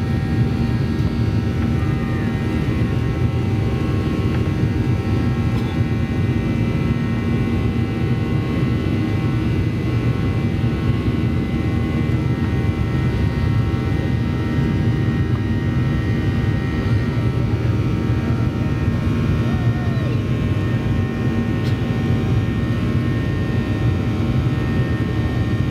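Cabin noise of a Boeing 737-800 in its climb after takeoff: a steady deep rush of airflow and engine noise from its CFM56-7B turbofans at climb power, with several faint steady whining tones above it.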